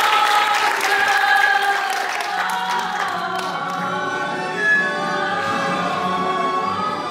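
Music with women's voices singing held notes, while applause fades out over the first few seconds. A low steady musical accompaniment comes in about two seconds in.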